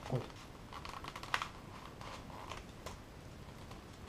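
Faint rustling and light clicks of a model railway coach's box and plastic packaging being opened and handled.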